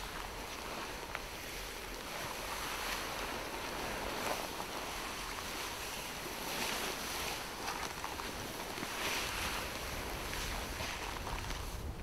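Steady wind noise on the microphone, with several swells of rustling from long grass and clothing as people crawl through it.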